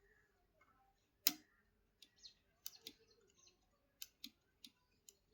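Clicks and light taps of small hard parts being handled: one sharp click about a second in, then a string of lighter, irregular clicks.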